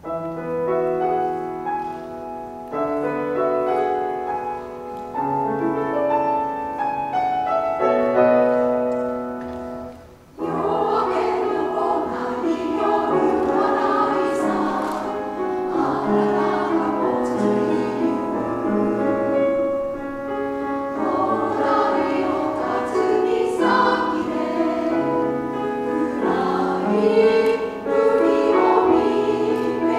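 Grand piano playing a gentle introduction, then a women's chorus enters about ten seconds in, singing a Japanese song in harmony with the piano accompanying.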